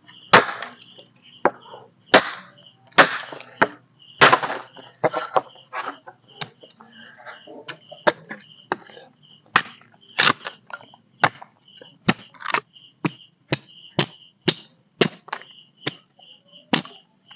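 Repeated sharp chopping strikes on wood, hacking at a piece held on the lap, loud and irregular at first, then about one to two strikes a second. A faint high chirp repeats steadily behind them.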